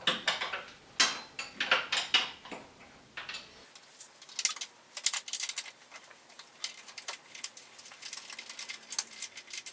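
Steel hand wrench clicking and clinking against bolts and the steel frame of a John Deere garden tractor as the bolts are worked: a run of irregular sharp metal clicks, some in quick bursts.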